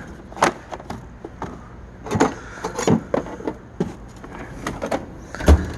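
Tool chest drawers and metal tools being handled: a run of scattered clicks and clanks, with a heavier thump about five and a half seconds in.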